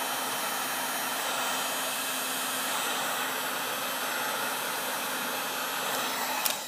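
Wagner electric heat gun blowing steadily on its 1000-degree setting: an even rush of air with a faint hum, aimed at the edge of an iPhone 4 to soften the digitizer glue. A single click near the end.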